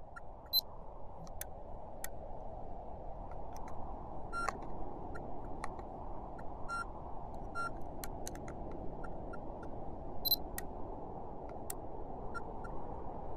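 A steady low rushing noise with many short, sharp clicks and electronic blips scattered irregularly over it, a few of them ringing briefly with a thin tone.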